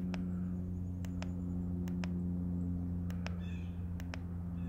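Repeated sharp clicks of a handheld trail-camera card viewer's buttons as pictures are stepped through, about nine in all, over a steady low hum. A short high-pitched sound comes about three and a half seconds in.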